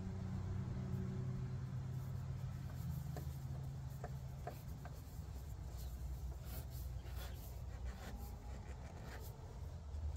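Steady low hum of a battery-powered electric fuel pump running, pumping diesel from the truck's tank into fuel filters; its pitch shifts a little about three seconds in and again near the end. Light clicks and small rubbing sounds of handling over it.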